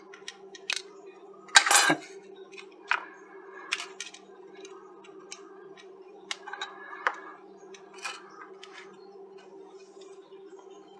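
Metal tweezers and a cold soldering iron tip clicking and tapping against a small circuit board at its micro-USB charging port: light, irregular clicks and clinks. There is a louder short rustle about two seconds in, over a steady low hum.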